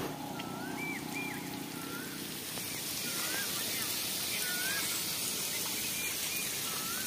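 Water spraying from a leaking water pipe: a steady hiss that grows louder about two and a half seconds in. A bird calls in short, curved whistled notes, about one a second.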